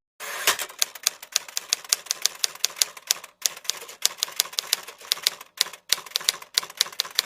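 Typewriter keys clacking in a fast, uneven run, about five strikes a second, with a short pause about halfway through.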